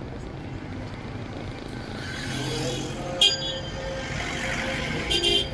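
City street traffic: vehicle engines running steadily, with a short high horn beep about three seconds in and another brief horn sound near the end.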